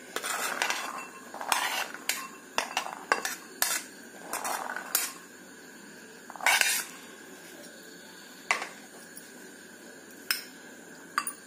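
Ceramic plate and glass bowl clinking and scraping as boiled potato pieces and peas are tipped and pushed from the plate into the bowl: a string of irregular clinks and short scrapes, the loudest about six and a half seconds in.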